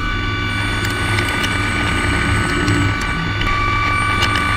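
CNC mill's spindle driving a quarter-inch drill into 4140 alloy steel at 6876 RPM under flood coolant: a steady machine whine over the hiss of coolant spray, with a low hum and scattered light ticks. The main whine steps slightly lower in pitch about three and a half seconds in.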